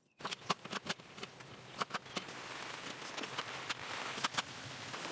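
Steady hiss of heavy rain with irregular sharp ticks and crackles, the louder ones about two seconds and four seconds in.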